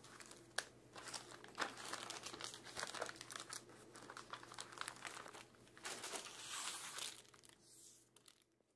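Plastic cable bags and paper manuals crinkling and rustling as motherboard accessories are picked up and stacked by hand on a table, with scattered light clicks and knocks; the handling stops near the end.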